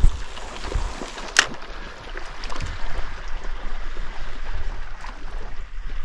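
Water sloshing and gurgling against a boat hull with uneven wind rumble on the microphone, and one sharp click about a second and a half in.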